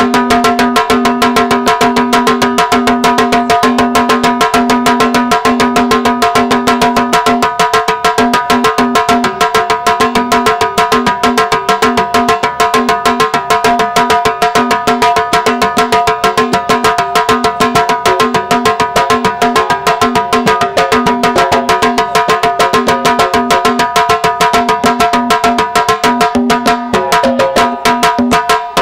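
Drums beating a fast, even rhythm for a traditional sword dance, over a steady held tone whose lowest note cuts in and out.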